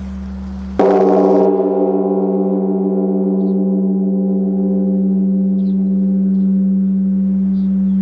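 Large bronze Korean temple bell (beomjong) struck once with a wooden log, about a second in. It rings on with a low, lingering hum and many fading overtones, over the still-sounding hum of the previous strike. Faint bird chirps.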